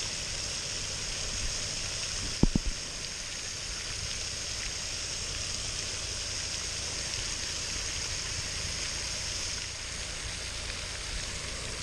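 Pond aerator fountain spraying, its water falling back onto the pond surface in a steady rushing hiss. A short knock cuts through it about two and a half seconds in.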